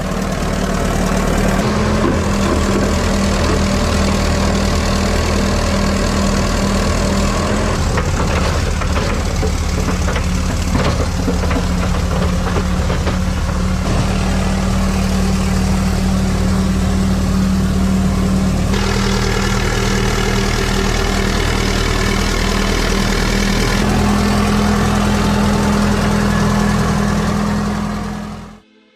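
Heavy diesel machinery engine running steadily and loudly, its sound shifting abruptly several times, then cutting off just before the end.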